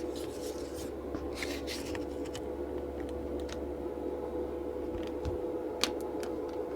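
Plastic back cover of a Nokia Lumia 625 being fitted and pressed onto the phone: light scraping and handling noises with scattered small clicks, and one sharper click near the end as it snaps into place.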